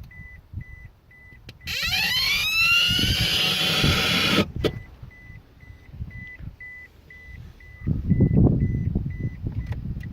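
Toyota Prius dashboard speaker sounding a short high beep about three times a second, broken about one and a half seconds in by a loud siren-like sweep rising in pitch that lasts about three seconds and cuts off suddenly. The owner first took it for an ABS brake alert and traced it to the car radio going bad. A low rumble comes in near the end.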